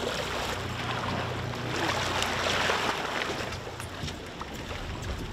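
Boat engines running underway with a low steady hum, water rushing and splashing past the hull, louder about two to three seconds in.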